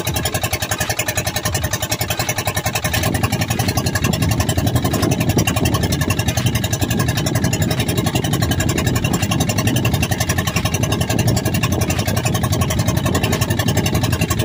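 Boat engine running steadily, with a rapid even pulse; its low rumble grows louder about three seconds in.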